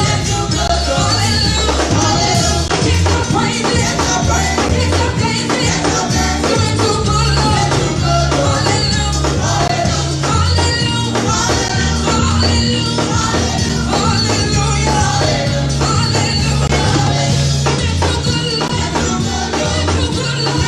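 Gospel worship music with singing over a steady bass line and tambourine.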